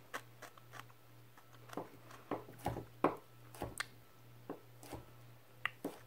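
A person chewing a bite of raw jalapeño pepper: a string of soft, irregular clicks and crunches, over a low steady hum.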